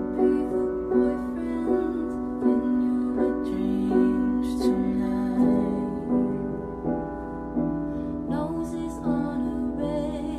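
Piano playing chords, a new chord coming every half to three-quarters of a second, with a woman singing along.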